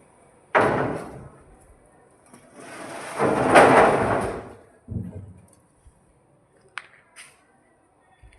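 A sharp bang about half a second in, then a longer scraping rush that swells and dies away around three to four seconds, and a softer thud near five seconds, with two light clicks near the end.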